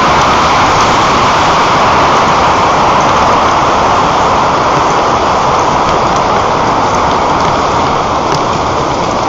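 Strong wind blowing over the microphone: a loud, steady rushing noise.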